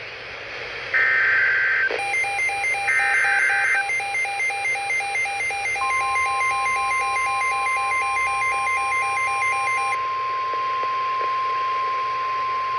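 NOAA Weather Radio emergency alert signals. Two short screeching bursts of SAME digital header data play over a rapid pulsing beep that starts about two seconds in. Near six seconds the steady 1050 Hz warning alarm tone begins and runs on past the end, while the beeping stops at about ten seconds.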